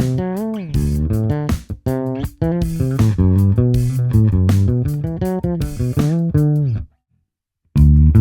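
Sonic fretless electric bass played solo: a melodic line of plucked notes with sliding pitches. A downward slide ends in a brief silence near the end, and then the playing starts again.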